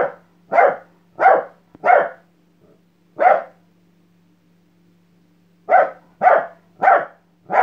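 Small dog barking in short, sharp, excited barks: a run of four barks about two-thirds of a second apart, then a single bark. After a pause of about two seconds comes another run of barks. This is a greeting, after the dog has woken its owner.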